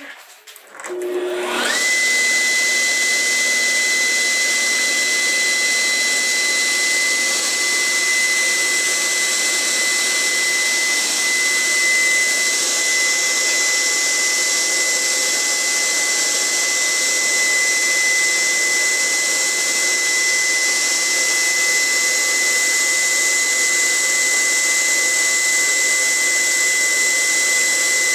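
Electric motor of a bench-mounted drill spinning up with a rising whine about a second and a half in, then running steadily with a high whine while holes are drilled in thin wooden birdcage bars.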